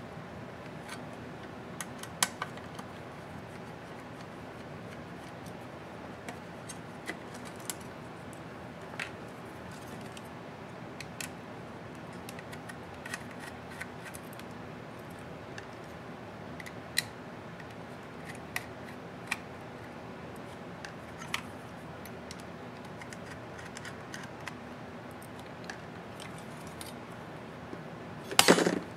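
Scattered small clicks and taps of a precision screwdriver, screws and thin metal laptop parts being handled during disassembly, over a steady low room hum. Near the end there is a louder, noisy scrape lasting about half a second.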